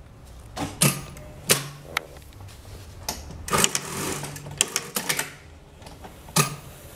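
Sun Special SS-9000S-7-Y direct-drive industrial lockstitch machine giving a series of separate sharp clicks and clacks at irregular spacing, some with a brief low hum under them.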